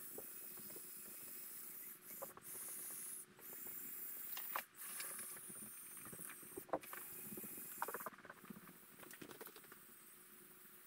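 Small electric motors of Lego Technic models, a crawler excavator and a dump truck, whining faintly in short runs that start and stop several times, with scattered light clicks of plastic gears and tracks.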